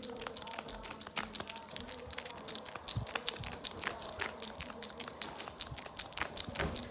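Plastic candy wrapper crinkling and crackling as it is handled, a dense, irregular run of small sharp crackles.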